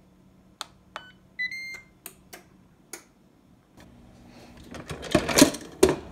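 Ninja Foodi multi-cooker being set: button clicks and short electronic beeps in the first two seconds, then the lid being fitted and turned into place with scraping and several clunks, loudest near the end.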